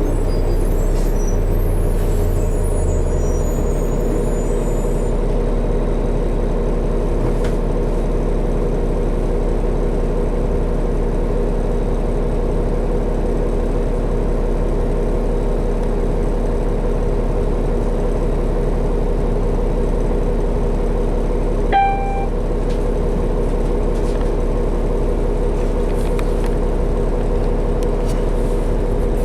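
Steady drone of a 2012 New Flyer D60LFR articulated diesel bus under way, heard from inside the cabin: engine and drivetrain hum with road noise. A short electronic beep sounds once, about three-quarters of the way through.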